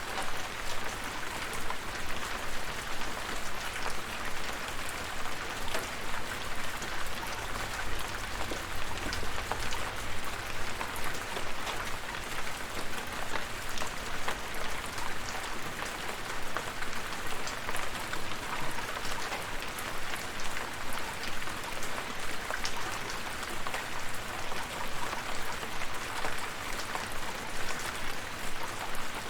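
Steady rain falling, with many separate drop hits ticking through an even hiss.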